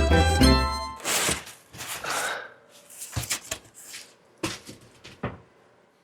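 Background music ends about a second in. Then come rustling and a scattered series of knocks and thumps, like handling and moving about in a small room.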